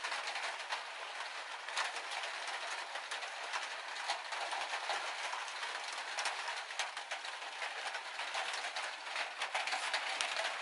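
Rain falling on the steel roof of a 2017 Ram ProMaster high-top van, heard from inside the cargo area. A steady hiss is broken by many separate drop ticks.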